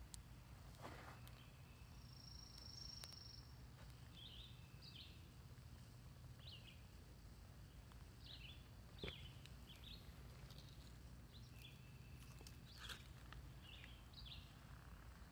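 Faint outdoor ambience with small birds chirping now and then in short, high chirps over a low steady rumble, and a few soft knocks.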